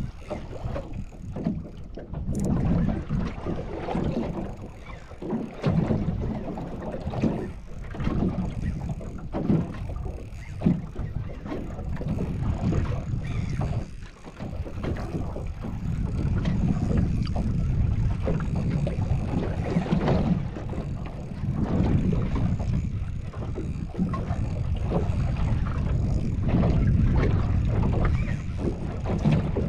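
Wind buffeting the microphone on a small fishing boat at sea, in uneven gusts over a low rush of water against the hull.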